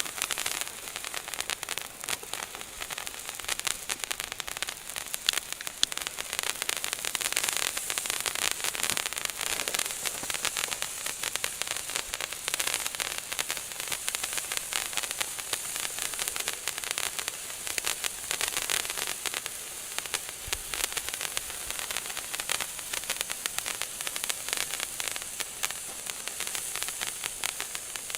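Handheld fountain firework burning: a steady hiss of spraying sparks laced with dense, fine crackling.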